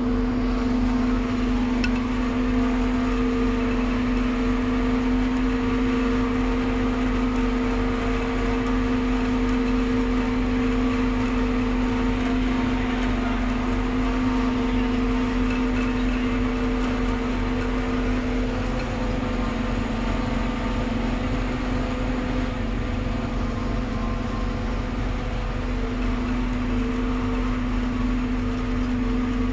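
Forage harvester running steadily while cutting standing maize for silage, heard from inside the cab: a continuous machine drone with a strong low hum, its pitch shifting slightly about two-thirds of the way through.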